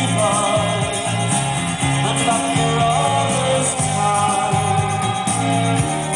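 A song with singing and guitar over a steady bass rhythm, played back on a vintage Gradiente stereo system through its Spectrum 65 loudspeakers.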